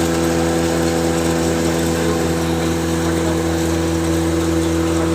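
Maize grit pulveriser grinder running steadily: a continuous mechanical drone with several steady hum tones under a dense rushing noise.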